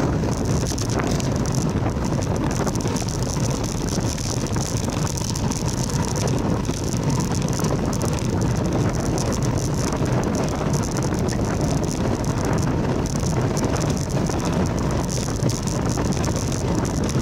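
A bicycle riding along an asphalt road: steady wind noise on the microphone over tyre rumble, with the light mechanical ticking and rattling of the bike.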